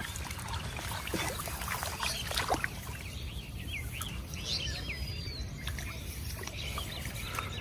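Bare feet wading through shallow water and mud in a flooded rice paddy, with small splashes and swishes in the first few seconds. A bird chirps several times around the middle, over a steady low rumble.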